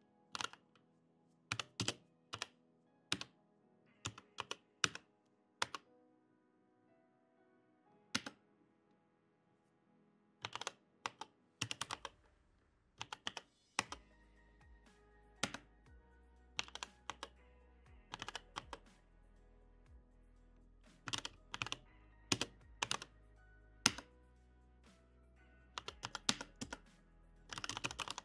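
Computer keyboard typing: irregular runs of sharp keystrokes broken by pauses of a second or more, over quiet background music.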